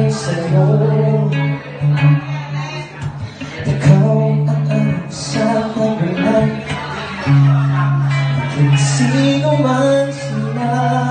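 Live acoustic guitar accompaniment with a man singing into a microphone.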